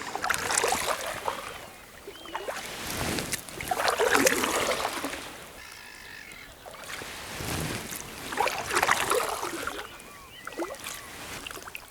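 Canoe paddle strokes swishing through calm water, three slow strokes a few seconds apart, with faint bird calls between them.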